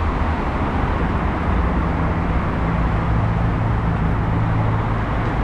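Busy road traffic going by: steady road noise, with a vehicle's engine humming low from about a second and a half in until near the end.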